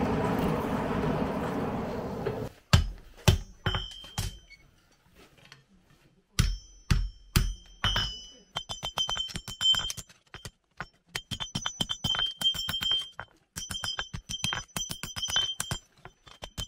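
A blacksmith's hand hammer forging a red-hot horseshoe on an anvil, with each blow ringing. It opens with a steady rush from the forge fire that stops about two and a half seconds in. Then come two short sets of heavy blows, followed by a long run of quicker, lighter, ringing strikes.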